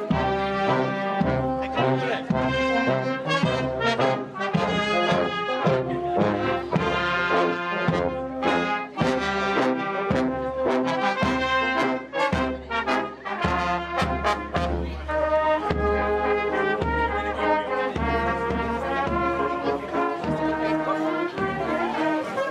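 Brass band music, several brass instruments playing sustained chords over a steady drum beat of about two strokes a second.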